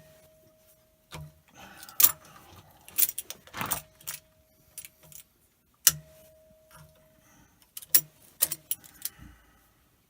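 Vice grips clicking and clanking on the metal drain bolt of a water pump as the bolt is worked loose. A dozen or so irregular sharp metallic clicks, several followed by a brief ringing tone.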